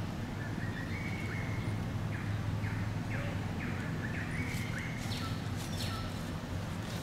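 A bird calling in a run of short, quick chirps, some sliding down in pitch, over a steady low background rumble.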